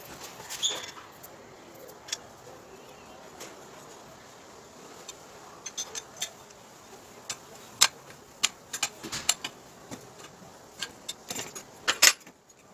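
Small metal parts and hand tools being handled: scattered sharp clicks and clinks, few at first and coming thick and fast in the second half.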